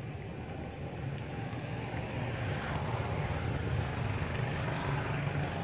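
A motor vehicle's engine running steadily nearby, slowly growing louder.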